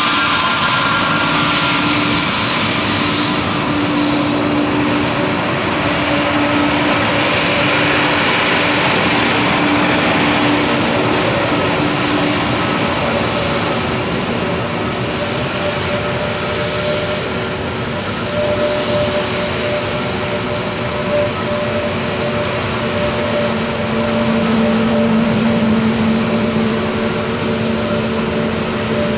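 Airbus A320neo's Pratt & Whitney PW1100G geared turbofan engines running at low taxi power: a steady rush of jet noise with several steady humming tones.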